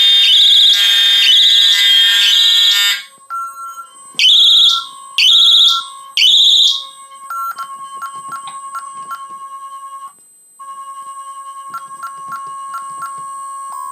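Fire alarm horns sounding a loud, piercing pulsing tone, then three blasts in the temporal-three evacuation pattern. After that the horns stop, and a quieter steady electronic tone with short repeated beeps over it carries on, briefly cutting out and starting again.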